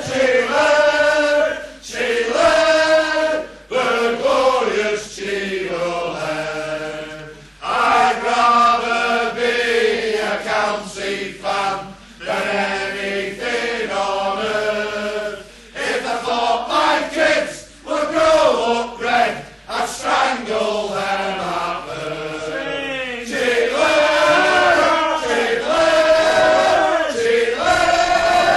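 Football supporters singing a terrace chant together, a mass of male voices in phrases a couple of seconds long with short breaks between them.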